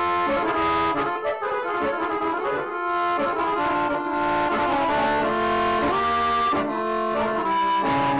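Instrumental Bosnian sevdah music: a melody of held notes moving from one pitch to the next, with no singing.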